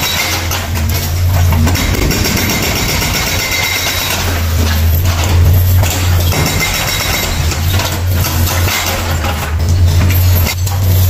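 Yanmar mini excavator's diesel engine running under load, its low drone swelling and easing as the hydraulics work. Over it comes the crunch and crack of concrete breaking in the hydraulic crusher jaw.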